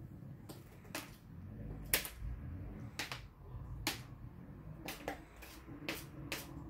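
Motorised rolling cat-toy ball on a hardwood floor, giving about ten sharp, irregular clicks and taps as it rolls and bumps about. The loudest click comes about two seconds in.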